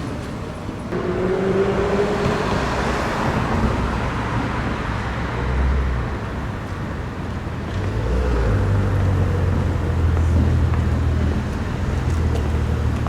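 Road traffic going by, with cars passing. A short rising engine tone comes a second or two in, and a heavier, steady low engine rumble runs through the second half.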